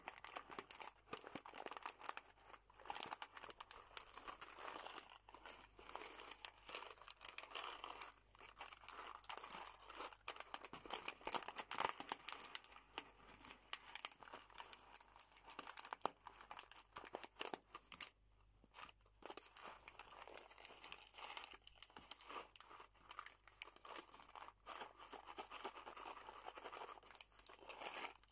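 Metallised foil snack bag of sunflower seeds crinkling under the fingers as it is squeezed and handled: a dense, irregular run of crackles, with a short pause about two-thirds of the way through.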